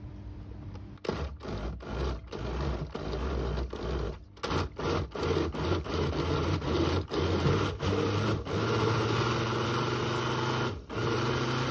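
Countertop blender motor running, its blade puréeing vegetables and broth into a sauce. It starts about a second in, stops and restarts several times in the first few seconds, then runs steadily.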